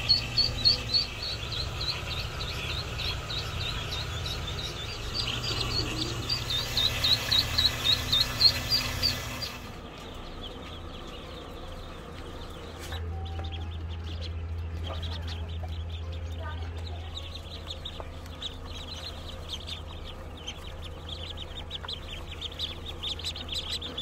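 Newly hatched chicks peeping: rapid high peeps, about three a second, for the first ten seconds. After a change about ten seconds in, many chicks peep together more faintly over a low steady hum.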